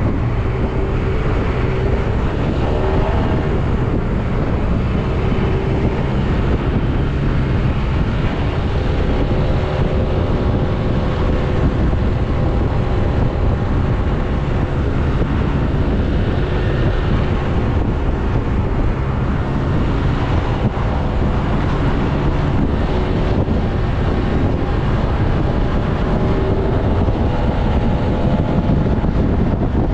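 Motorcycle riding at road speed, most likely a Yamaha MT-09: steady wind noise on the rider's microphone over the engine, whose pitch rises and falls a few times with the throttle.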